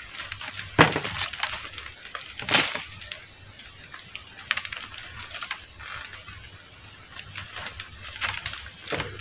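Sharp cracks and snaps of banana flower remnants being broken off a Lakatan banana bunch by hand. The two loudest come about a second in and about two and a half seconds in, with lighter clicks between and after.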